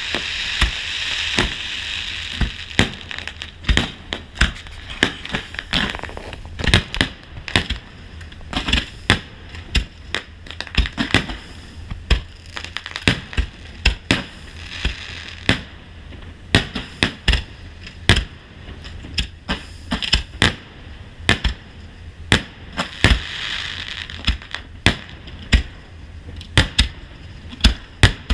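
Fireworks display: shells bursting in a rapid string of sharp bangs, often several a second, with stretches of crackling at the start, around the middle and near the end.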